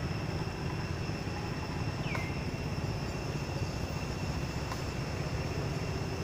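Steady outdoor ambience: a constant low rumble with a thin, steady insect whine above it, and one short falling chirp about two seconds in.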